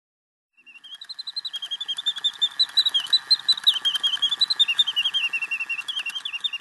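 Singing bird automaton in an 1820 gold pistol singing: a rapid warbling, trilling whistle song in fast pulses, starting about half a second in, over a steady lower buzz with fine ticking.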